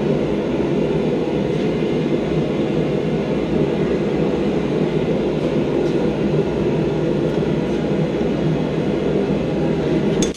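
Steady, loud roar of a blacksmith's forge heating the steel. Near the very end it drops off sharply, and a couple of metal clinks sound.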